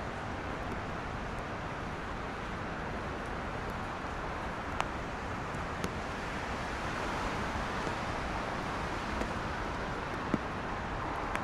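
Steady rush of distant city highway traffic on rain-wet roads, tyres and engines blending into one even wash of noise, with a few faint ticks over it.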